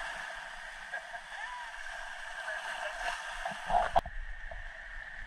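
Ocean surf washing and splashing over a rocky lava shoreline, a steady wash of water. A single sharp click about four seconds in, after which the sound turns duller.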